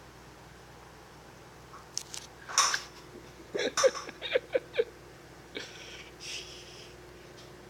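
A baby sneezes once, sharply, then makes a quick run of about five short, high-pitched vocal sounds.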